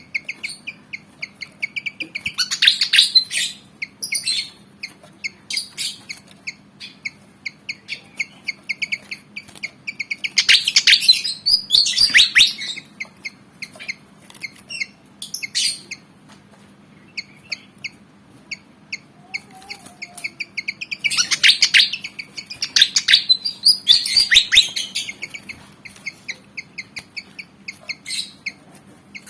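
Pied fantail (kipasan jawa) calling: a quick, steady run of sharp chirps, broken three times by louder bursts of dense chattering.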